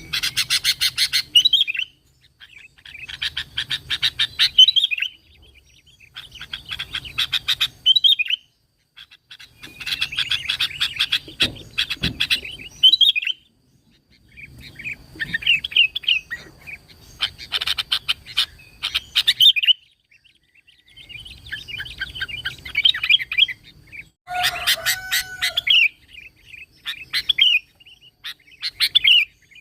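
Sooty-headed bulbul (kutilang) in full song: repeated bursts of rapid chattering notes, each a couple of seconds long and often ending in a slurred whistle, with short pauses between. About three-quarters of the way through there is one lower, more drawn-out call.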